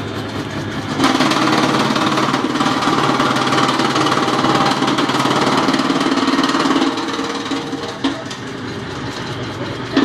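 Electric-motor-driven drum wood chipper running steadily. About a second in it grows louder and rougher as a branch is chopped by its rotating drum knives. After about six seconds it drops back to the plain running sound.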